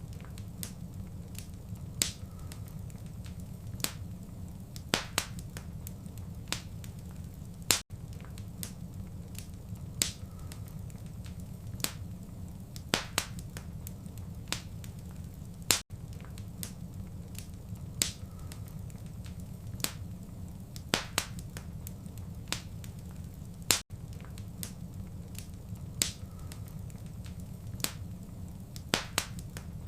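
Wood fire crackling: irregular sharp pops and snaps over a steady low rumble. It is a short looped recording, with a brief dropout about every eight seconds.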